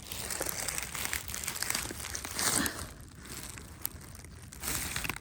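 Dry leaf litter rustling and crunching with irregular crackles, as someone crouches and works through the leaves, louder about halfway through.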